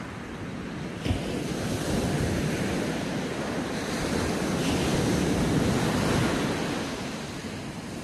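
Sea surf breaking onto a sandy beach, the wash of a wave swelling to its loudest about five to six seconds in and then easing off. There is a short thump about a second in, and wind on the microphone.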